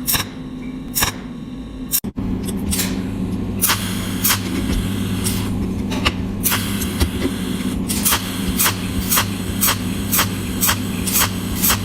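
Cold welding machine running with a steady electrical hum, and short sharp clicks on top that settle into a regular beat of about two a second.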